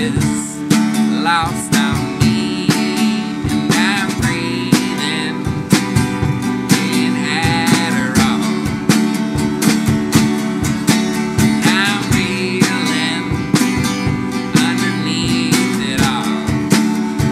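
Folk punk song played live on a strummed acoustic guitar, with drums played with sticks and a wavering harmonica melody over the top.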